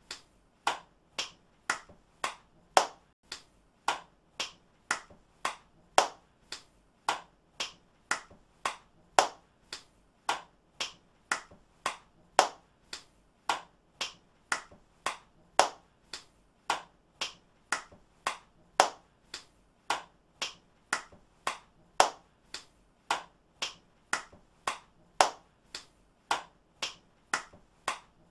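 Hand claps by one person, repeated at a steady pace of about two a second, some louder than others.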